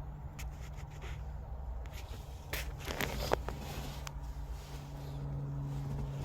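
Light clicks and scrapes of someone handling things inside a car's cabin, clustered a couple of seconds in, over a steady low hum.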